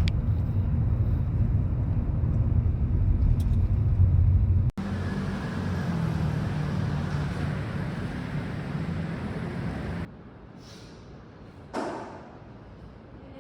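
Low, heavy vehicle rumble that breaks off abruptly about five seconds in and starts again, then drops to a much quieter background about ten seconds in, with one short swishing sweep near the end.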